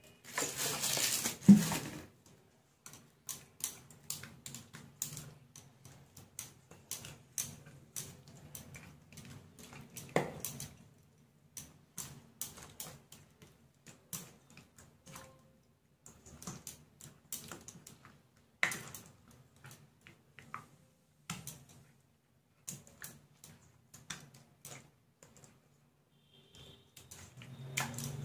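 Oil poured from a bottle onto fish in a stainless steel bowl for about two seconds, then a hand mixing the paste-coated hilsa pieces, with many irregular clicks and taps against the steel.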